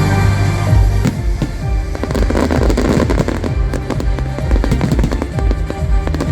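A fireworks display going off over a music soundtrack: a rapid string of bangs and pops starting about a second in, with a dense crackle near the middle, while the music plays on.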